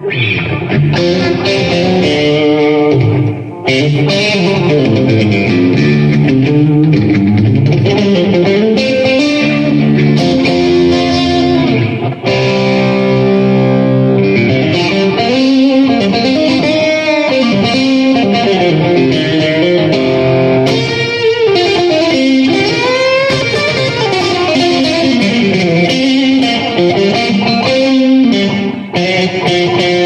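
Stratocaster-style electric guitar played through an amplifier rig: a continuous run of notes and chords, broken only by two short pauses, about three and a half and twelve seconds in.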